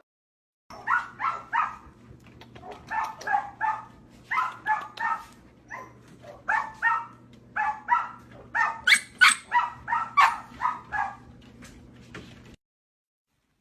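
A dog barking in quick runs of short, high-pitched yaps, two or three a second, over a steady low hum. Both stop abruptly near the end.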